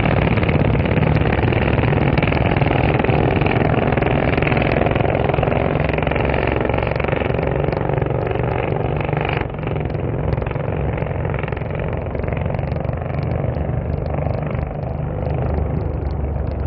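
Racing motorcycle engines running at high revs as the bikes pass on the circuit. About halfway through the sound changes abruptly and drops a little in level.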